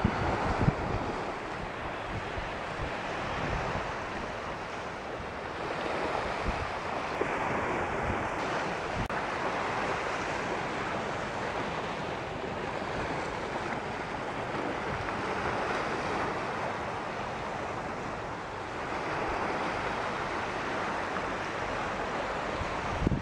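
Small waves washing steadily onto a sandy beach, with wind buffeting the microphone in a few gusts near the start.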